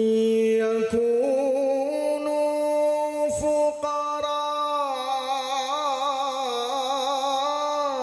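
A man chanting a Quran recitation in the melodic tilawah style into a microphone: long held notes that step up and down in pitch, turning into a wavering vibrato about five seconds in.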